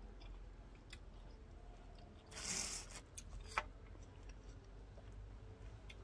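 Faint handling sounds of a knife and a piece of jackfruit: a brief rustle about two and a half seconds in, then a single sharp click about a second later.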